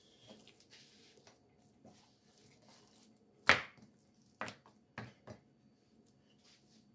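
Hands rubbing and turning raw pork slices on a plate, with four sharp knocks between about three and a half and five and a half seconds in, the first much louder than the rest.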